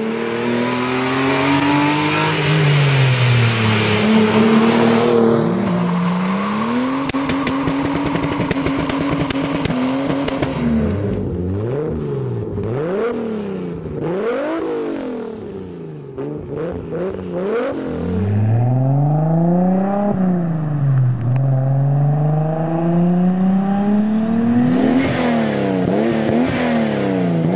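Toyota Supra six-cylinder engines heard through aftermarket exhausts in a run of short clips. First a car comes by with its pitch falling. Then, about halfway through, a Supra with an HKS titanium exhaust and stage 4 turbo kit is revved in sharp blips. Near the end, a twin-turbo Supra with a Blitz NUR Spec R exhaust revs up and drops back in long sweeps.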